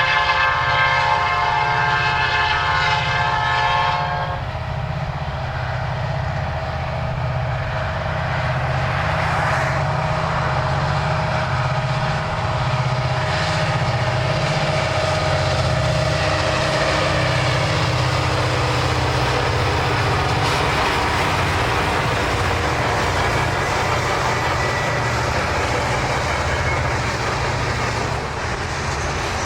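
EMD diesel freight locomotive sounding its multi-chime air horn, which cuts off about four seconds in. After that, the low rumble of the diesel engines and the train's wheels on the rails run on steadily as it passes.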